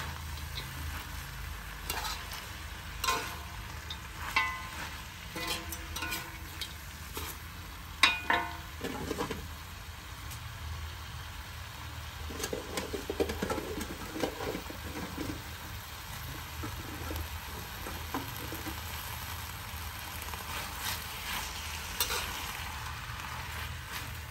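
Frog meat and leafy greens stir-frying in a wok: a steady sizzle, with a metal spatula clinking and scraping against the pan, most often in the first eight seconds or so.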